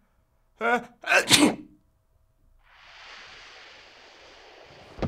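A man sneezes: a short 'ah' and then a loud 'choo'. A hissing whoosh sound effect follows for about two seconds, ending in a heavy thud right at the end.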